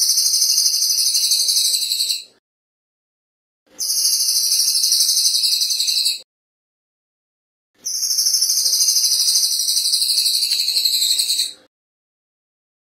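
Crested jay (cililin) giving a fast, high-pitched metallic rattle, three long trills of a few seconds each with short silent gaps between them.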